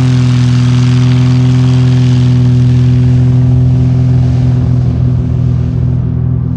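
Light piston-engine propeller airplane at full takeoff power, a loud steady drone with a deep hum, passing close. Its pitch eases slightly downward and the higher hiss fades about five seconds in as it moves away.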